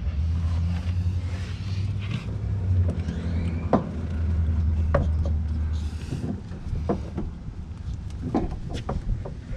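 Tools and metal parts clanking sharply a few times during the starter installation under the vehicle, over a steady low hum.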